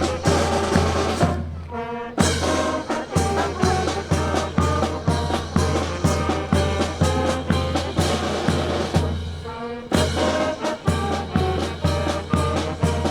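Brass band music with a steady beat of about two per second. It breaks twice, briefly, to a single held chord.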